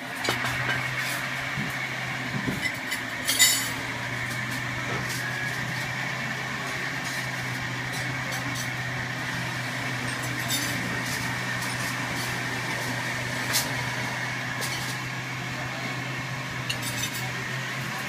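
A 36-inch industrial ceiling fan running steadily at speed, its motor giving a steady low hum. A few sharp clinks sound over it, the loudest about three and a half seconds in.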